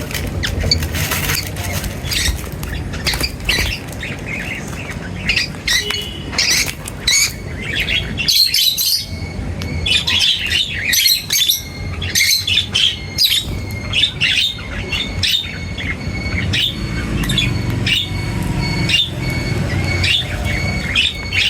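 Birds chirping and squawking in many short, rapid calls, thickest in the middle and later part, over a low steady rumble.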